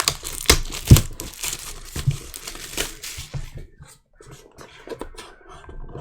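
Trading card packaging being torn open and crinkled, a dense crackly rustle with a sharp snap about a second in, a brief pause, then more rustling.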